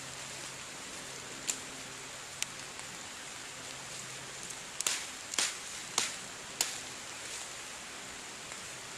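Steady hiss of light rain, broken by about six sharp snaps and knocks of dead wood being broken and handled, most of them bunched between five and seven seconds in.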